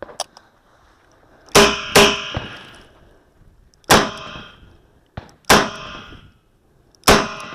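Five revolver shots: two in quick succession about a second and a half in, then three more spaced about a second and a half apart. A brief ringing tone follows the first two shots.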